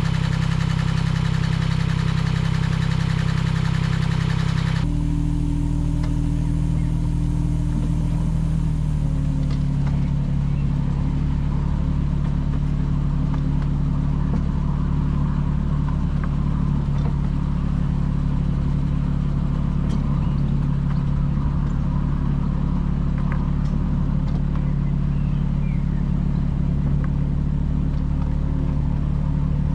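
Small internal-combustion engine of a 10.25-inch gauge diesel locomotive running steadily. The sound changes abruptly about five seconds in, and the engine note settles slightly lower around nine seconds.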